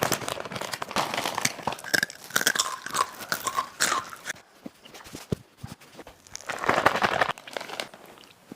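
A person chewing and crunching food close to the microphone: dense crunching for the first four seconds or so, a quieter pause in the middle, then another short spell of loud crunching.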